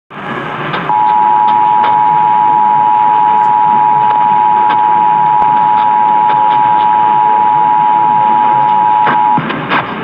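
Emergency Alert System attention signal: two steady tones sounding together, heard over AM radio with static hiss and crackle underneath. The tone starts about a second in, holds for about eight seconds, and cuts off shortly before the end, leaving only static.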